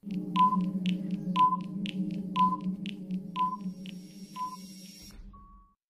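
Countdown timer sound effect: clock-like ticks about twice a second with a short beep about once a second, five beeps in all, over a steady low drone. It fades out, with a brief single tone just before it stops near the end.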